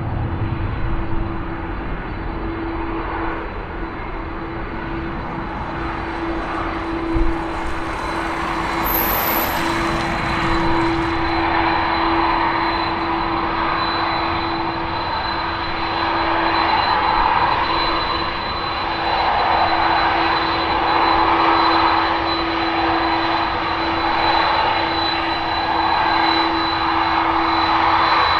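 Airbus A330-200 airliner taxiing at low power, its turbofan engines running with a steady whine over a jet roar that swells and eases several times as the aircraft turns. There is a brief thump about seven seconds in.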